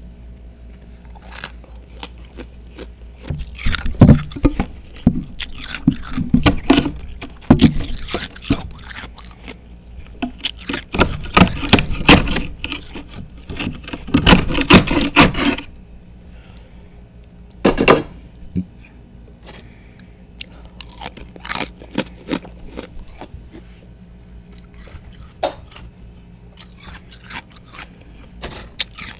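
Freezer frost and thick chunks of ice being bitten and chewed close to the microphone: two long runs of loud crunching, then one sharp crunch and a few lighter ones.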